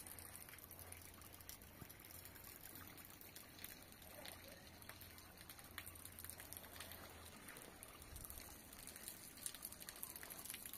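Near silence: faint outdoor background hiss with a low hum and a few faint ticks.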